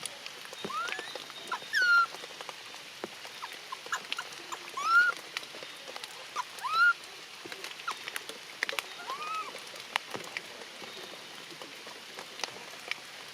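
A newborn animal crying in short, high squeals that rise and then fall, repeated every second or two, over steady rain patter with scattered drip clicks.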